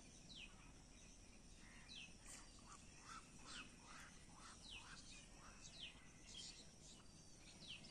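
Faint birdsong: a short falling call repeated about once a second, joined in the middle by a quick run of lower falling notes, over quiet outdoor background noise.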